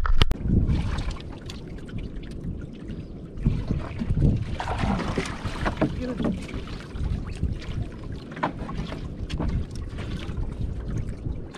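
Water lapping and slapping against a small wooden outrigger canoe, with wind rumbling on the microphone and scattered light knocks on the hull. A single sharp knock comes right at the start.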